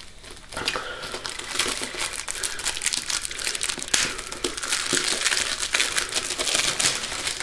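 Gift-wrapping paper being torn and crumpled by hand as a present is unwrapped: a dense, continuous crackling and rustling that starts about half a second in.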